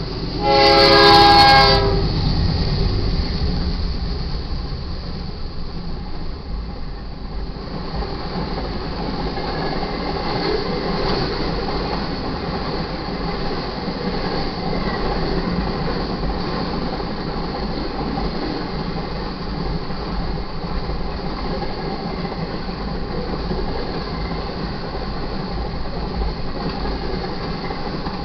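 A locomotive horn sounds a loud blast about a second in, from the lead GE C44-9W diesel of a BNSF double-stack container train. Then comes the steady rumble and clatter of the train rolling past: locomotive engines and the wheels of the stack cars on the rails.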